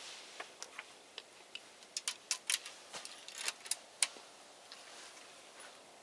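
A run of small, sharp clicks and ticks, irregularly spaced and coming in quick clusters around two and four seconds in, from handling the scoped rifle on its bench rest.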